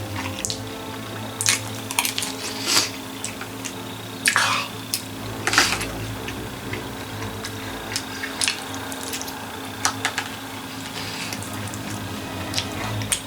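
Eating noises: chewing, with scattered clicks and a few short scrapes of a utensil and container as orange chicken is eaten from a party tray, over a steady low hum.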